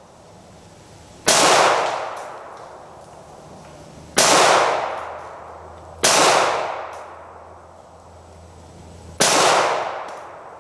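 Four pistol shots fired at an uneven pace, the last after a longer pause. Each is a sharp crack followed by an echo that fades over about a second.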